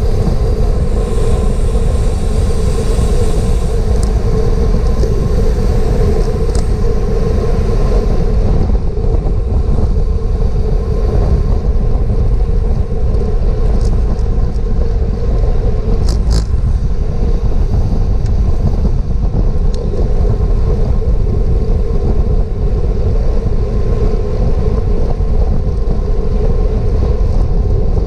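Wind buffeting a GoPro's microphone on a bicycle moving at race speed, a loud, steady rumble with a hum running under it and a few sharp clicks.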